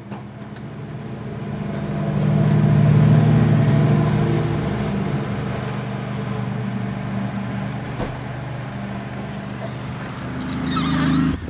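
An engine running steadily with a low hum. It grows louder over the first three seconds or so, then holds steady, and cuts off abruptly at the end.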